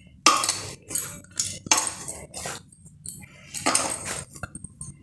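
Dough being kneaded by hand in a stainless steel plate: a series of short rubbing, scraping strokes against the metal, with the plate shifting under the hands.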